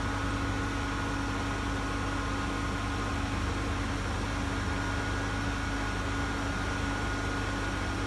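Hyundai V6 engine idling steadily with the air conditioning switched on at max cool, a constant low rumble with a steady hum over it.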